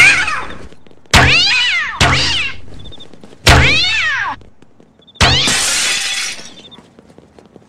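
A cat launcher firing four times, each sharp shot followed by a cat's falling, yowling screech. About five seconds in, a shop window shatters in a burst of breaking glass.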